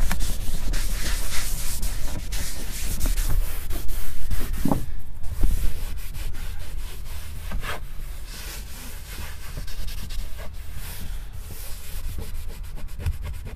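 Hand-held leather brush scrubbing a leather car seat wet with spray cleaner: a steady back-and-forth scratchy rubbing of bristles on leather, working grime out of the pores. The strokes are louder in the first half and lighter after about six seconds.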